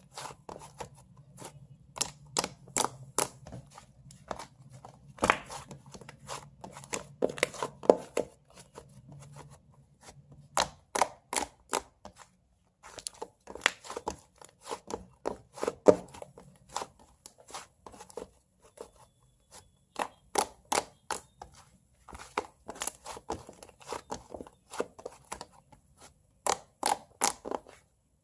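Irregular clusters of sharp clicks and taps, several a second, with short pauses between the runs.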